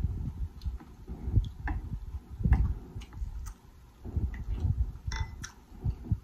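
Close-miked chewing of soft, sauce-coated lobster tail meat: low, wet chewing pulses with sharp mouth clicks and lip smacks scattered through.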